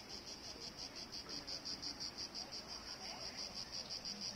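Insect chirping in a steady, high-pitched pulsing trill of about eight pulses a second.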